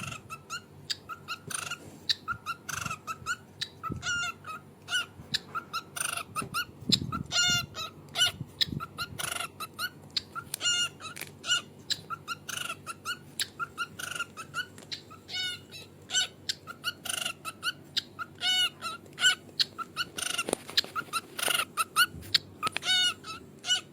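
A long run of short, high chirping calls, several a second, repeated irregularly.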